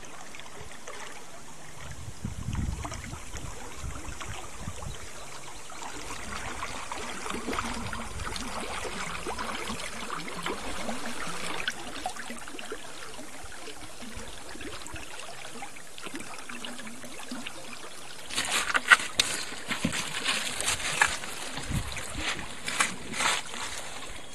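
Shallow river water lapping and trickling against a canoe's hull at a gravel shore. Near the end comes a run of sharp splashes and knocks.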